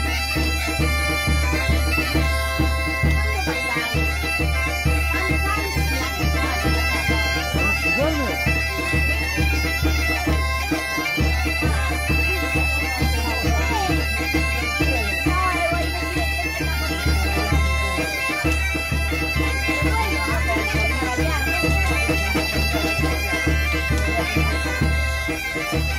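Background music: sustained held tones over a steady low beat that drops out briefly about every seven seconds.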